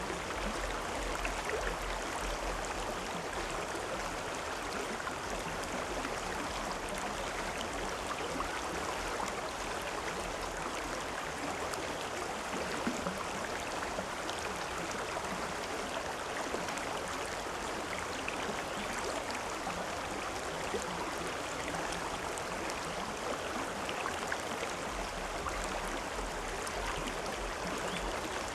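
Steady rushing and babbling of a flowing river or stream, with a dense patter of small splashes.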